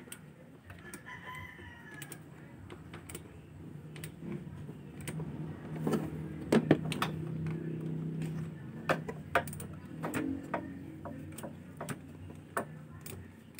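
Sharp metal clicks and knocks of bolts and parts being handled on a scooter engine's cylinder head, the loudest about six and a half seconds in. A rooster crows in the background.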